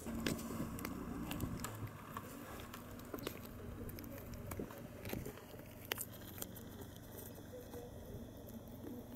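Scattered soft taps and clicks as a cat bats at and bites a feather wand toy close to the microphone, over a low steady hum.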